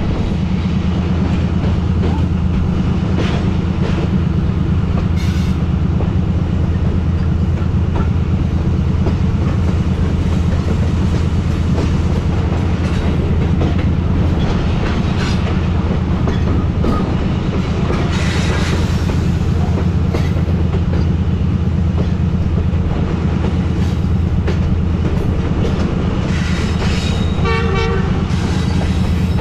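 Tezgam Express passenger train running at high speed: a steady heavy rumble of wheels on rail with scattered clicks. A short horn blast sounds near the end.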